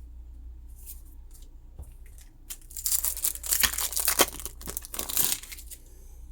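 Foil wrapper of a Pokémon trading card booster pack being torn open, a few seconds of ripping and crinkling that begins about two and a half seconds in, after a few light handling clicks.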